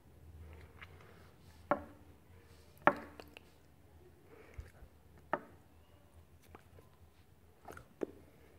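Hands striking and brushing against each other while signing: a few sharp taps, about four, over a faint low room hum.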